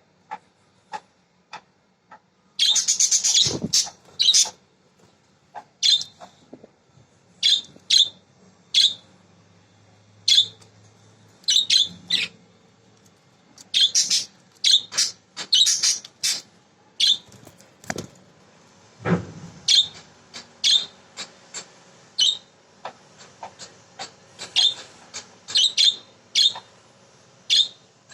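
Budgerigars chirping: short, sharp calls every half second or so, with a burst of busier chattering about three seconds in.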